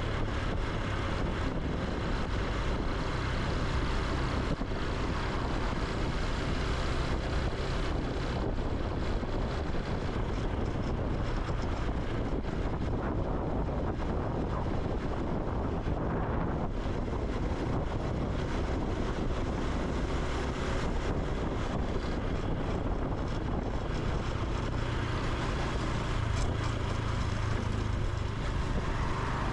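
Honda Super Cub C125's air-cooled 125 cc single-cylinder four-stroke engine running steadily while riding, with road noise.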